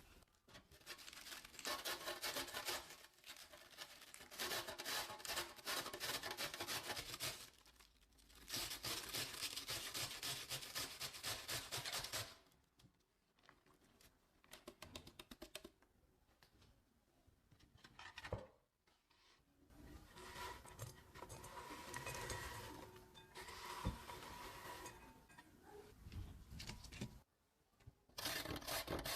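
Vegetable preparation: dense, rapid scraping and cutting sounds in several stretches, with short pauses between them.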